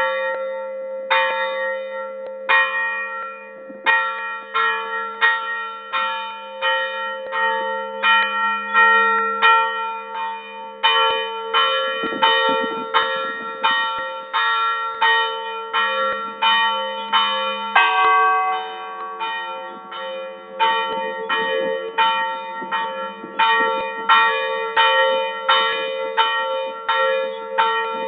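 Church bells in a full peal heard up close from inside the belfry: a bell overhead is struck by its clapper in quick repeated strokes, about two a second, over the sustained ringing of the other bells. About two-thirds of the way through the pattern changes as a different, lower-sounding bell comes in.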